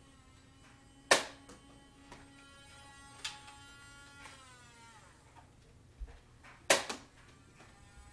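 Nerf foam-dart blasters firing: two loud, sharp cracks, about a second in and again near seven seconds, with a softer one in between.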